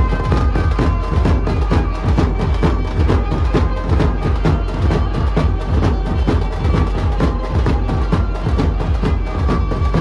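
Loud Dhumal band music: fast, dense drumming with held melody notes over it, without a break.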